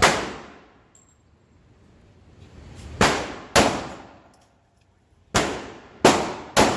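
Six 9mm pistol shots fired at uneven intervals at an indoor range, each a sharp report with a short reverberant tail.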